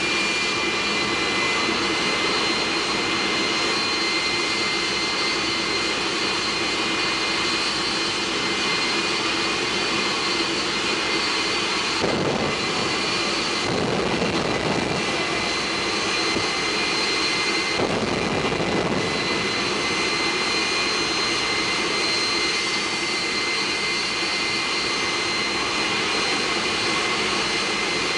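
Jet truck's turbine engine running steadily, a loud whine with several high steady tones over a dense rushing noise. Three times midway, a deeper rush swells for about a second and falls back.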